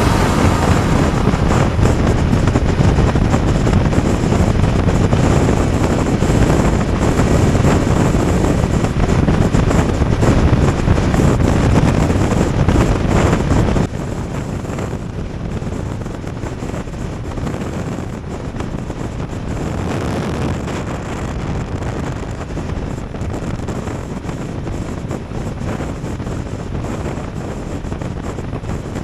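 Motorcycle being ridden: engine noise mixed with wind buffeting the microphone, getting suddenly quieter about halfway through.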